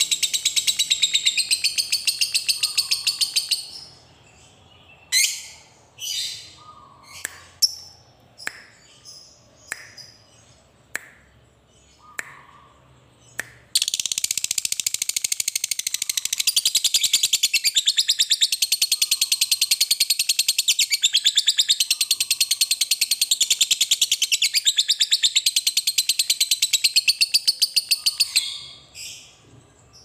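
Fischer's lovebird giving its long chattering call (ngekek): a very fast, high-pitched trill. It stops about four seconds in for a string of single sharp chirps, roughly one a second, then resumes about halfway through as one unbroken chatter of some fifteen seconds, with a few short chirps at the end.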